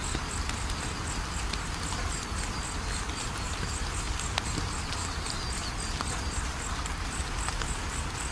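Wood fire crackling, with irregular sharp pops over a steady low rumble. A high, even chirping pulses about four times a second throughout.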